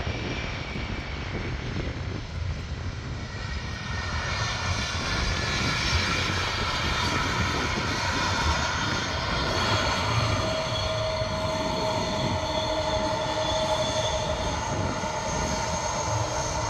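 Boeing 747's four jet engines running during the landing roll: a steady rumble with several whining tones that grow louder about four seconds in as the aircraft passes close by.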